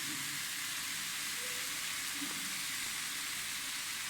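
Steady sizzling of a water spinach stir-fry frying in hot oil.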